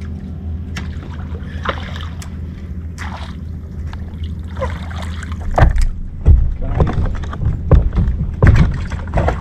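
Sounds aboard a fishing kayak on the water: a steady low rumble, then from about halfway a series of irregular knocks and splashes.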